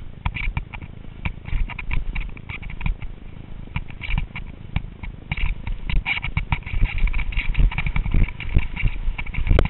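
Skis scraping and chattering over snow during a downhill run: a fast, uneven string of scrapes and clacks over a low steady wind rumble on a helmet-mounted camera.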